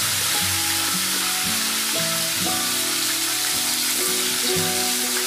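Oil sizzling in an aluminium wok around lumps of sweetener (minatamis) melting over a low flame. A ladle stirs through them partway in. Background music with changing notes plays under the sizzle.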